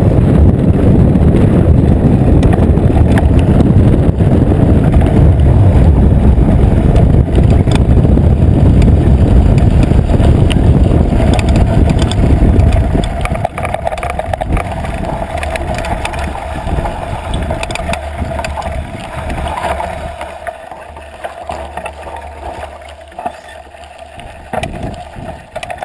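Wind buffeting the camera microphone and the knobby tyres of a Trek Fuel EX8 mountain bike rumbling over a dirt and gravel road at speed. About halfway through the noise drops sharply as the bike slows, leaving a quieter steady hum with scattered crunches and clicks of gravel under the tyres.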